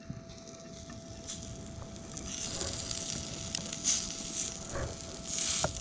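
Pieces of catfish and sunfish meat starting to sizzle in a frying pan that is still heating up, the hiss growing steadily louder with a few small pops.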